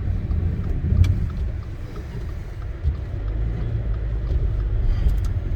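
Steady low rumble of a car driving on a snow-covered road, heard from inside the cabin, with a few faint clicks.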